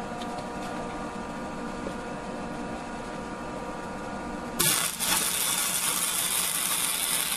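Lincoln Weld Pack 100 wire-feed welder laying a spot weld on steel pipe: after a steady hum, the arc strikes about four and a half seconds in with a loud, even crackling hiss.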